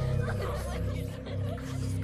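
Background music with low, steadily held tones.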